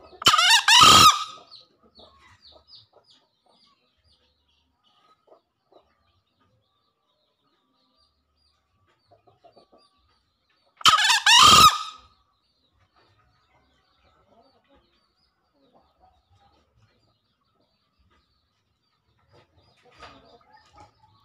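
Male green junglefowl crowing twice, about ten seconds apart, each crow a short call of about a second.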